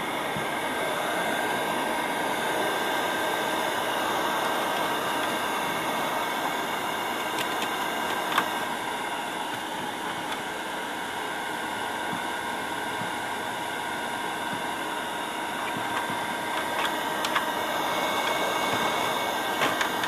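Handheld electric air blower running steadily, a constant rush of air with a faint steady whine, blowing dust out of a sewing machine's open housing during cleaning. A few small clicks sound partway through and near the end.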